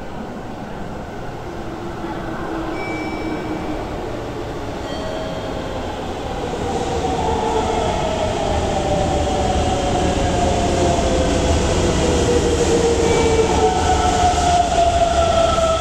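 Hokuso Railway 7300-series train coming into an underground station. Its running noise grows steadily louder, and from about halfway in, motor whines fall in pitch as it slows to stop.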